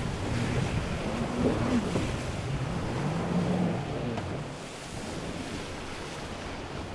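Choppy surf rushing and splashing, with a jet ski's engine note rising and falling underneath. The engine fades after about four seconds, leaving the waves.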